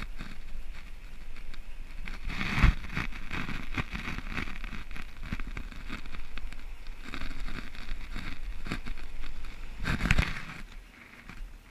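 Wind buffeting the microphone of a camera lying on the beach, crackling and rumbling in gusts over the wash of the surf, strongest about two and a half seconds and ten seconds in, then dropping away near the end.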